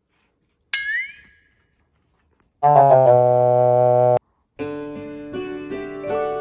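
A short, ringing cartoon-style sound effect with a bending tone about a second in. Then keyboard music: a quick run of notes into a loud held chord that cuts off suddenly, and a bouncy melody starting again a moment later.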